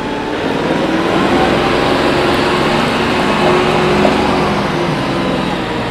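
Bobcat CT5550 compact tractor's three-cylinder diesel engine running at a steady pitch as the tractor drives across gravel in medium range of its hydrostatic transmission.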